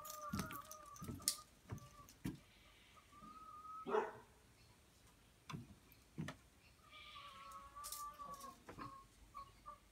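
Hens clucking, with several drawn-out calls and a few short knocks.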